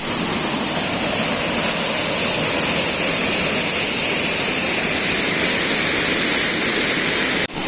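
Waterfall: a loud, steady rush of falling water, bright and hissy.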